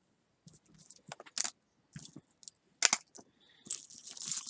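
Costume jewelry being handled: pieces clinking and tapping together in scattered clicks, the sharpest a little before three seconds in, then a brief jangling rattle near the end.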